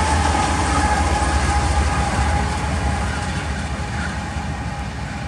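A GE AC44CW diesel-electric locomotive, the coal train's rear distributed-power unit, passing close at track speed. Its diesel engine gives a deep rumble with a steady whine over it, and its wheels run on the rails. The sound starts to fade about halfway through as the locomotive draws away.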